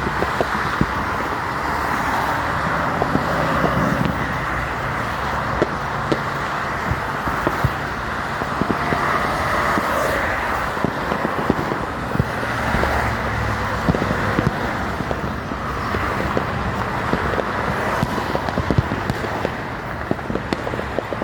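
Steady freeway traffic roar with many sharp fireworks pops and crackles scattered over it.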